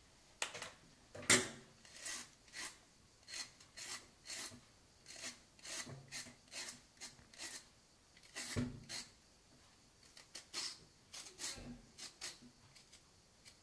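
A kitchen knife scraping the tender skin of a long Sicilian gourd (cucuzza lunga, Lagenaria longissima) in short repeated strokes, about two a second, with one heavier stroke about two-thirds through.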